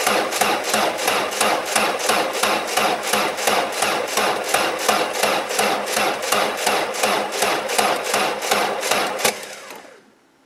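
A Peugeot 205's 1.4-litre TU3 petrol engine being cranked by its starter motor on jump leads, giving an even chug of about four compression beats a second without catching. Such slow cranking is the sign of too little battery power for the cold engine. About nine seconds in the starter is released and the engine spins down to a stop.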